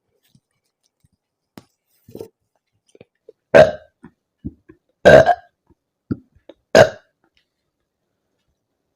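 Three loud soda burps from a woman, about a second and a half apart, brought up by the gas from chugging carbonated lemon-lime soda.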